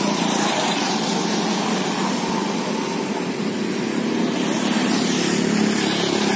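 Motorbike riding along a road: a steady rush of wind and road noise over a low engine hum.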